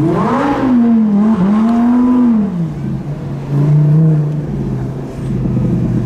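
Lamborghini Huracan Performante's V10 engine revving as the car accelerates. The pitch climbs sharply at the start, stays high with a small dip, and falls back about two and a half seconds in. A shorter rev follows about four seconds in before the engine settles.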